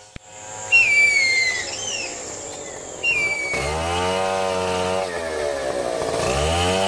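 A few descending whistled bird calls, then about three and a half seconds in a chainsaw starts and revs, its pitch rising and falling twice.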